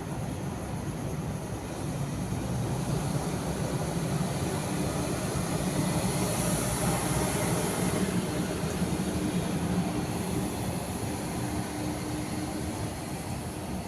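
Distant engine drone, steady with a low hum, swelling about halfway through and easing off again.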